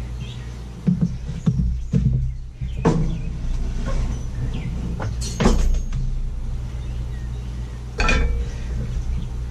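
Several sharp metal clunks and knocks as heavy lathe parts are handled and shifted on the bed, over a steady low hum.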